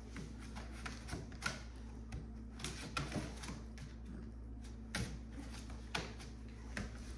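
Scattered light clicks and taps, about seven of them at irregular moments, over a steady low hum.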